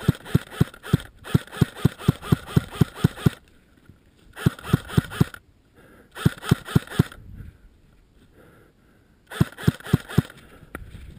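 Airsoft AKS-74U 'Krinkov'-style rifle firing full-auto bursts, about seven shots a second, with the gearbox whine under each shot. There are five bursts; the longest, about a second in, lasts about two seconds, and short pauses separate them.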